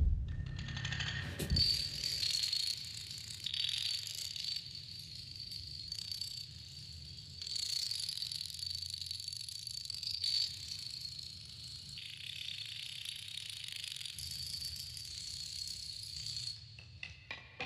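A long chain of toppling dominoes clattering, a dense rapid clicking that runs on and cuts off about a second before the end. A low thump sounds at the start and again about a second and a half in.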